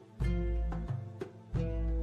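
Background music: a steady, deep bass beat under a melody of short, sharp-edged notes.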